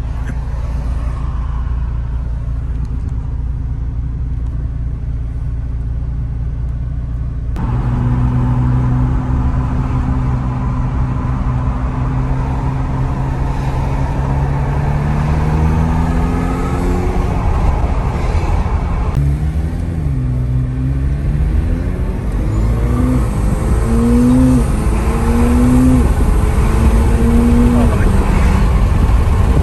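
McLaren supercar engine heard from inside the cabin while driving. It hums steadily at first, then accelerates, its pitch climbing and dropping back several times as it shifts up through the gears.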